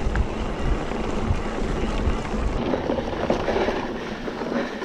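Mountain bike rolling over a dirt and gravel forest trail, heard through a handlebar-mounted action camera: steady tyre rumble and wind buffeting the microphone, with a few small knocks from the bike. The sound gets a little quieter and duller about halfway through.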